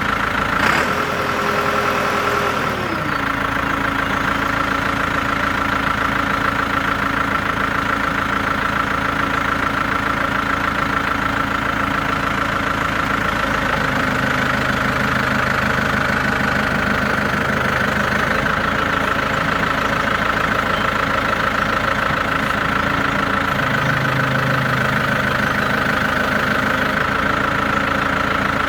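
New Holland LB110 backhoe loader's diesel engine running steadily at idle. Its speed drops a step about two and a half seconds in, and a steady high whine runs over it.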